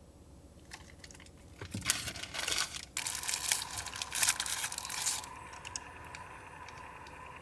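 Crinkling and rustling of something being handled, starting about two seconds in and lasting around three seconds. A faint steady hum sets in partway through and continues.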